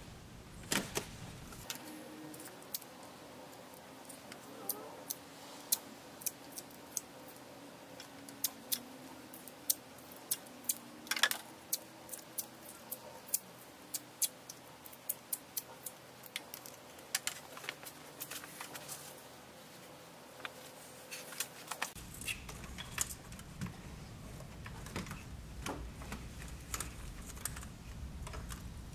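Irregular small clicks and light rattles of wiring, plastic connectors and cable ties being handled in a car engine bay, with a quick cluster of clicks about eleven seconds in.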